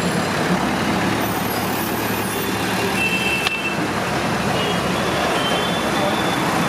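Steady roadside traffic din and street bustle, an unbroken wash of noise at constant level.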